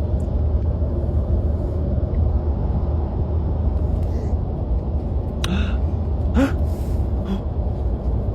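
Steady low rumble of road noise inside a moving car, with a couple of brief short sounds a little past the middle.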